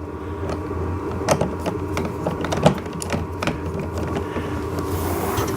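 Hand screwdriver turning a bolt through a plastic steering column, with irregular small clicks and scraping as the nut is held and the screw is driven in.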